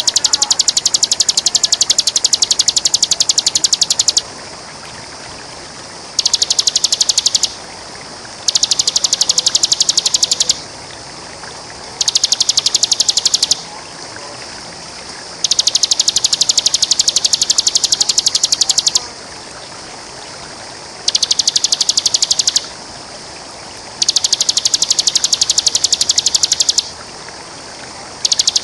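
Bar-winged prinia (ciblek) singing its fast 'ngebren' song: bursts of very rapid, evenly repeated high notes, each a second and a half to four seconds long, about eight bursts with short pauses between, over a steady rush of running water.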